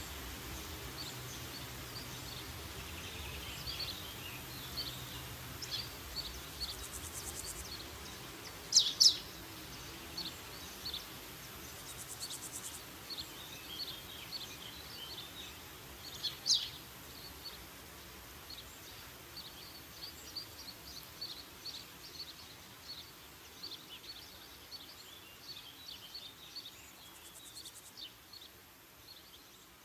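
Woodland birds singing and calling: many short high chirps, with a few louder, sharp descending calls, two about nine seconds in and one about sixteen seconds in, over a faint steady hiss. The birdsong gradually grows quieter.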